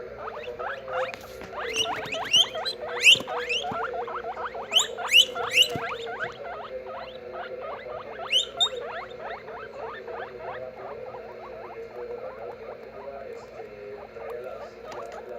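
Guinea pigs squealing in a rapid series of short, rising squeaks, densest in the first six seconds and then fewer and softer.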